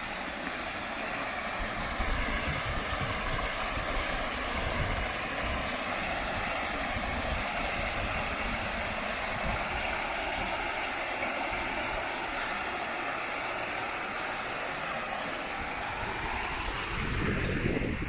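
Hankyu Line electric train running past, a steady rumble with a faint wavering whine that builds over the first couple of seconds and eases near the end. Wind buffets the microphone near the end.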